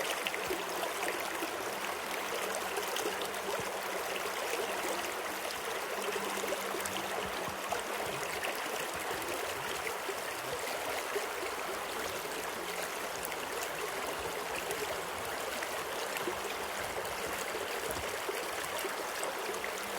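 Running water, a steady flowing rush that holds even without breaks.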